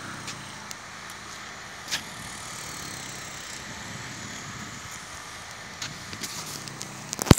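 Steady outdoor urban background noise, a hum of road traffic, broken by a few light clicks and one sharp click at the very end.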